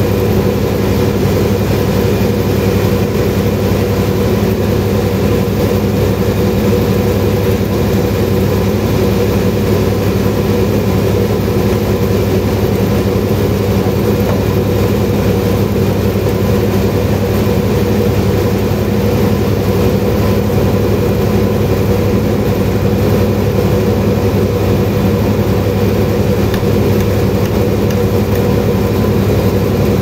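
Large band sawmill running steadily, a constant machine drone with several held tones and no change in speed or load.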